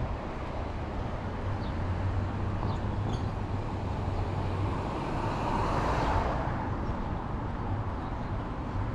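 Street traffic: a steady low engine hum, with a passing vehicle whose noise swells and fades a little past the middle.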